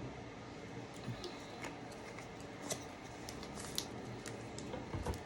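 Snack packaging being handled: scattered, irregular crisp crinkles and light clicks, with a dull knock near the end.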